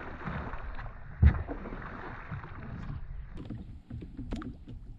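Handling noises on a fishing kayak: one sharp knock on the hull about a second in, then a run of small clicks and taps near the end, over a steady hiss of wind and water.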